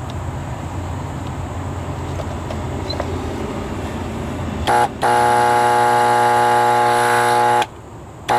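Septic system alarm buzzer sounding a loud, steady, multi-toned buzz in stretches: a short blip, then about two and a half seconds, a brief break, and about a second more. Before it, a low steady hum.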